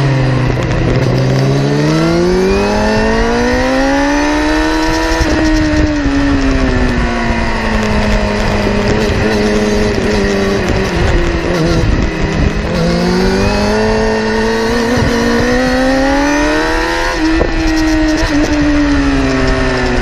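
Kawasaki ZX-10R's inline-four engine and exhaust, heard right beside the silencer. The revs climb for several seconds, ease back and dip around midway, then climb again and fall away near the end.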